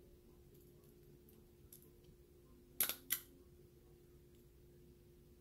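A stapler clicks sharply twice in quick succession about three seconds in as it staples a cardboard 2x2 coin holder shut. A faint steady hum runs underneath.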